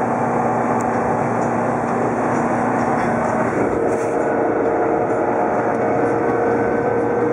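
Car engine and road noise heard from inside the cabin, running steadily; about three and a half seconds in the engine note steps up to a higher pitch and holds there.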